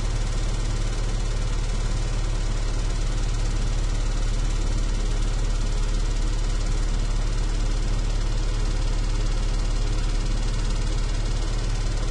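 A big electric fan running steadily: a strong low hum under an even rush of air, with no change in speed.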